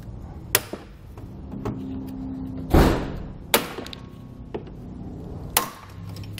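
Aviation snips cutting through the plastic of a car's front fascia: a few sharp snaps spaced a second or two apart, the loudest about halfway through.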